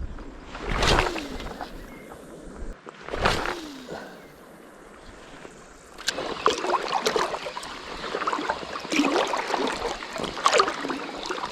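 Sea water washing and sloshing against the shore: a few separate surges in the first half, then a busier run of irregular splashing from about halfway through.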